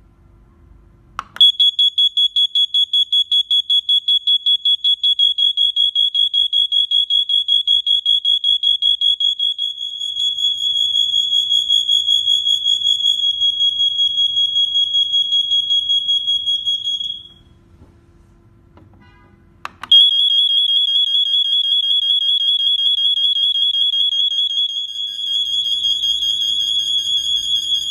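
ANKA interconnected smoke alarms sounding: a loud, high-pitched piezo tone that flutters rapidly in level. It starts about a second in, breaks off for a couple of seconds about two-thirds of the way through, then starts again.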